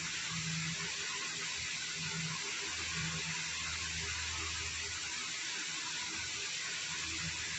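Steady hiss of room noise, with a low hum that fades in and out every second or so.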